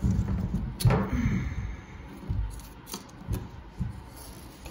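Scattered knocks and taps of wood as a prehung door and its jamb are shifted and set down onto thin wood spacers, with low handling bumps. The sharpest knock comes about a second in, and lighter taps follow near the end.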